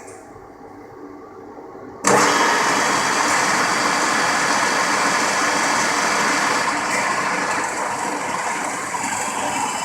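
An engine comes in abruptly about two seconds in and then runs steadily and loudly.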